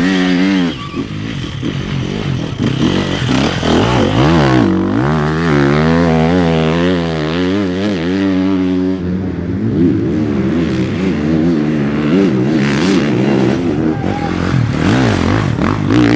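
Enduro dirt bike engines revving hard, one bike after another. The engine pitch swings rapidly up and down with the throttle as each rider powers through the turns.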